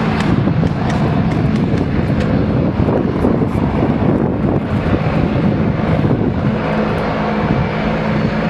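WZ-10 attack helicopter flying close by: steady, loud rotor and turbine noise with a low hum, churning without a break.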